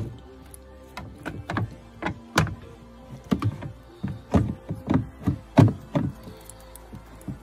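Plastic air-oil separator valve from a Porsche Cayman 987.2 knocking and clattering against its plastic mounting and the engine covers as it is turned and wiggled into place by hand. The knocks and clunks come irregularly, about a dozen in all.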